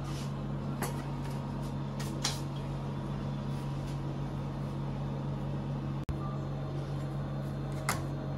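Bongard spiral dough mixer running with a steady motor hum, kneading bread dough, with a few sharp knocks or clicks about one, two and eight seconds in.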